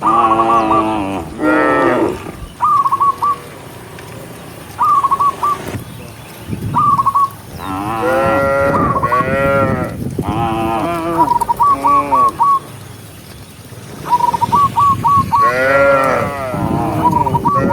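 Cattle mooing repeatedly, several long calls that rise and fall in pitch, some overlapping. Between the moos come runs of three or four short, high whistled notes, repeated every second or two.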